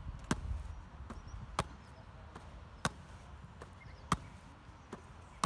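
Hands slapping onto an Australian rules football as it is passed from hand to hand around the knees, the ball gripped firmly each time: five sharp slaps, about one every second and a quarter.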